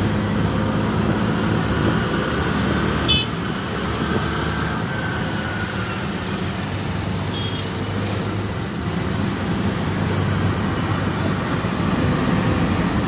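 Auto-rickshaw engine running steadily under way, heard from inside the rickshaw with road and traffic noise around it. A short sharp beep about three seconds in.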